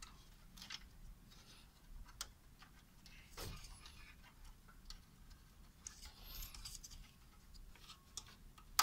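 Scattered light clicks and plastic scraping as a PC system fan's rubber mounting pegs are worked into the holes of a Dell OptiPlex desktop chassis, with a sharper click near the end.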